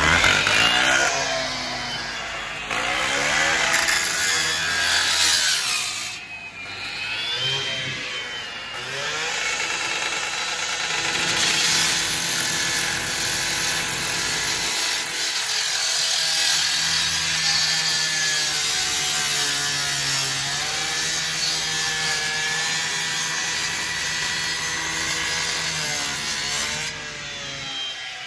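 Gas-powered rotary rescue saw running and cutting into a car's trunk lid, its engine pitch rising and falling as the blade works through the sheet metal. The saw is cutting the trunk open to reach a fire inside.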